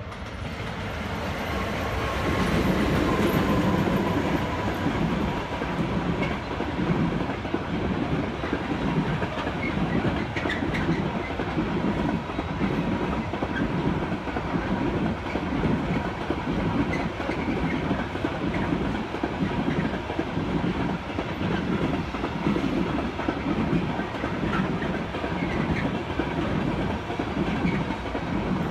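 A train passing close by. It grows louder over the first few seconds, then its wheels clatter over the rail joints in a steady rhythm of about one and a half beats a second, wagon after wagon.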